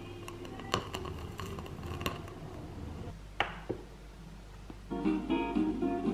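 A few faint clicks and one sharp knock, then acoustic guitar music with strumming starts a little more than two thirds of the way in.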